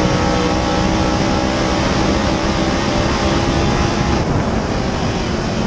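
Dirt late model race car's V8 engine held flat out at full throttle, its note holding steady, heard from inside the cockpit over a haze of wind and tyre noise.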